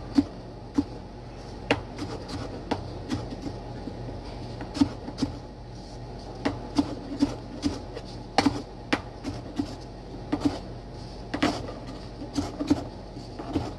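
Large chef's knife chopping bell pepper on a cutting board: irregular knocks of the blade against the board, often in quick pairs, over a steady low hum.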